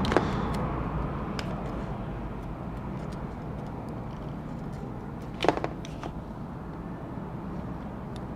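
Small hand tools tapping and clicking against a MacBook Pro during repair work, with one sharper click about five and a half seconds in, over a steady low hum.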